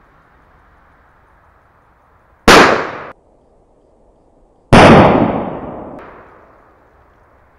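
Two loud firework bangs about two seconds apart from a Zenga firework; the second is the louder and echoes away over about two seconds.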